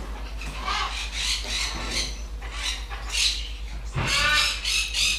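Young Timneh African grey parrot calling in a string of short, high squawky chirps while having its head stroked, with a longer call about four seconds in.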